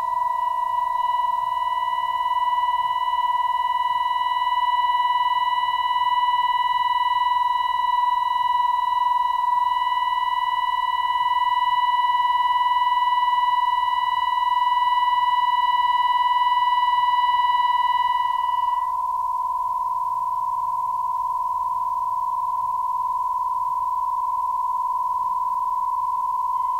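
Drone of long, steady held pitches in just intonation, nearly pure tones, from saxophone quartet and electronics. The highest tones drop out about two-thirds of the way through, leaving two lower pitches sounding on.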